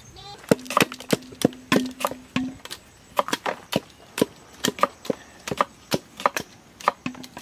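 Wooden curd churner pounding banana and papaya in a steel pot: a steady run of sharp knocks, about three a second.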